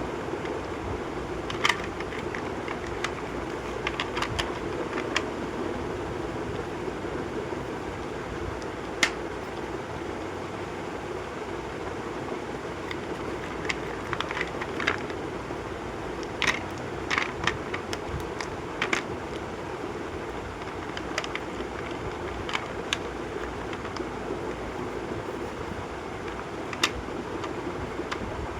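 Chalk being crushed: irregular sharp crunches and snaps, sometimes in quick clusters, over a steady background hiss.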